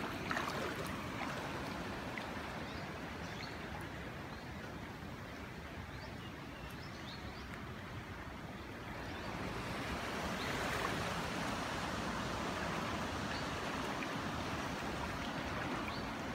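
Floodwater swishing around the legs of someone wading knee-deep through it: a steady rush of water that grows louder and brighter about ten seconds in.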